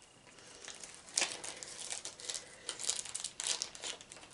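Tissue paper crinkling and rustling as a small item is unwrapped by hand, in irregular bursts starting about a second in.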